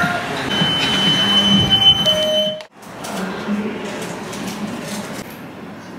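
A steady, high electronic beep held for about two seconds over a background murmur of voices, cut off suddenly just before the middle. Quieter room noise with faint voices follows.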